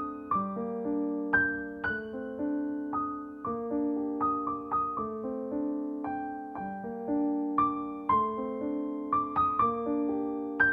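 Background music: a gentle piano melody of struck notes over soft chords.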